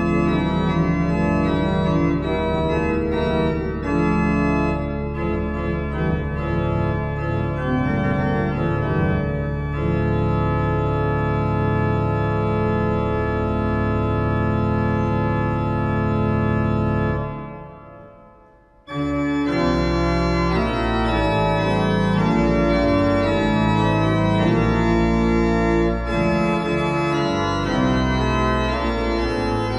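Vierdag pipe organ improvising on a hymn tune with a full, bass-heavy sound. About halfway through, a long held chord fades away into a short break, and the playing starts again about two seconds later with busier moving lines.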